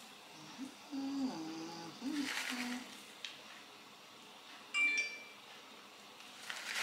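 Crinkly plastic bag of grated cheese rustling in short spells as cheese is sprinkled over a pie by hand, with a single light clink a little before the end. A low voice is heard briefly in the first three seconds.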